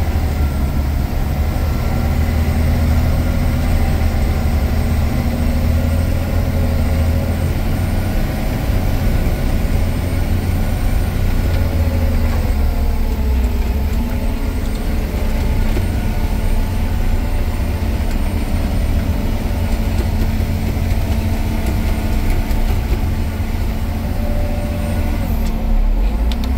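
Rock truck's diesel engine running under way, heard from inside the cab as a steady, heavy low rumble. The engine note dips for a moment about halfway through.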